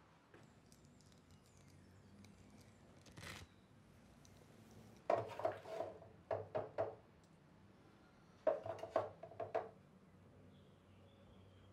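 Clatter of household objects being handled: two bursts of sharp, ringing knocks of several strokes each, about five seconds in and again about eight and a half seconds in, over a faint steady room hum.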